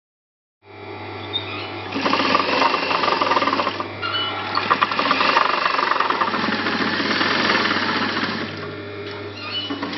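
Industrial sewing machine running: a steady motor hum comes in about half a second in, and a fast clattering stitching run grows louder from about two seconds in, easing off briefly near the end.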